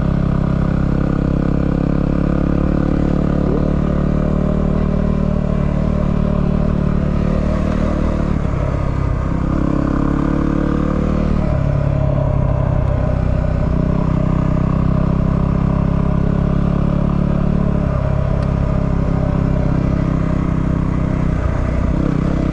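A 250 cc single-cylinder dual-sport motorcycle engine running under way, its pitch shifting up and down a few times as the rider works the throttle and gears.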